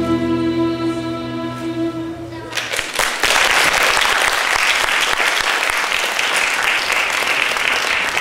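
String music with held notes, which stops about two and a half seconds in; an audience then applauds.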